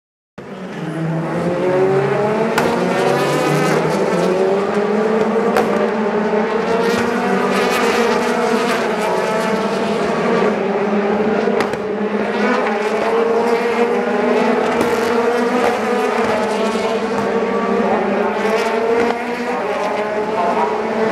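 Endurance race car engines at racing speed, several cars accelerating in turn, each engine note rising in pitch and breaking off at the gear changes, over a continuous background of engine noise.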